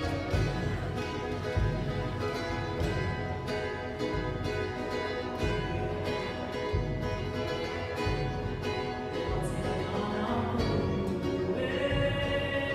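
Music with plucked string instruments over a low beat that falls a little less than once a second.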